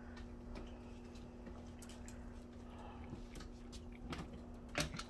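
Puppies lapping soft mush from a metal bowl: faint, scattered small clicks over a steady low hum, with one sharper knock near the end.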